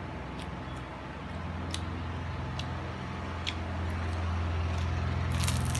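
A steady low motor rumble that grows louder, with scattered sharp crackles from a paper-wrapped baguette being handled and a short paper rustle near the end.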